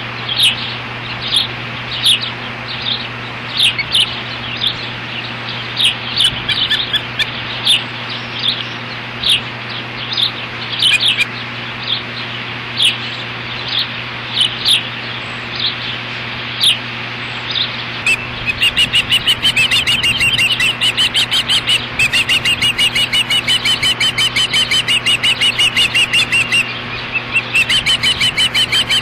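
Ospreys on the nest calling: sharp high chirps, spaced about a second apart at first, then about two thirds of the way in a fast unbroken run of chirps several per second. A steady low hum lies under the calls.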